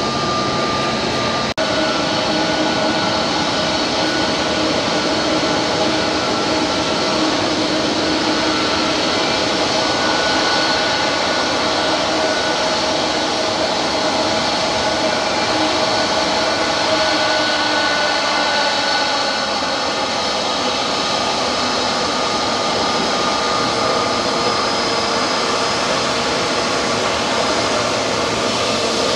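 Jet airliner engines running at an airport: a steady rush with several whining tones, one of which slowly drops in pitch about midway. A single sharp click about a second and a half in.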